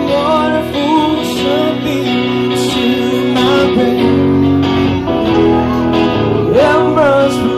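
Live band playing a song: a singer's voice carrying the melody over electric guitar and drums.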